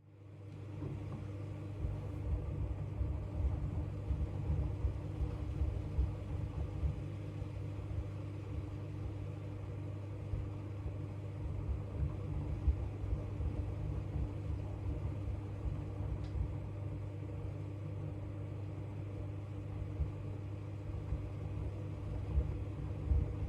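AEG LR8FL160EX front-loading washing machine running mid-program, its drum motor giving a steady low hum with an uneven low rumble from the turning drum and load.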